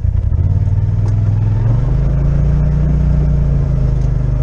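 Side-by-side UTV engine running under throttle while driving a dirt trail. The engine note rises about two seconds in and then holds steady.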